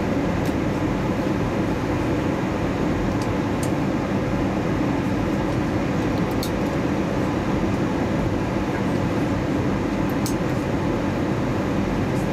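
Steady cabin noise inside an Airbus A320 airliner on descent: engine and airflow noise, even and unbroken, with a few faint high ticks.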